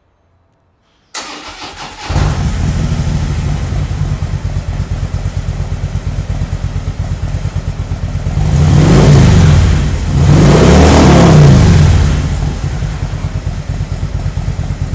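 Harley-Davidson Switchback's V-twin engine, breathing through a Firebrand Loose Cannon slip-on muffler, being started: about a second of starter cranking, then it catches and idles with a pulsing low rumble. It is revved twice near the middle, each rev rising and falling over about two seconds, before it drops back to idle.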